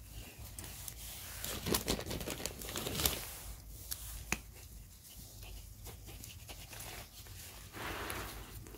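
Gloved hands pressing and firming potting soil around a petunia in a plastic pot: irregular rustling and crinkling of soil, leaves and glove, with a few sharp clicks, busiest about two seconds in.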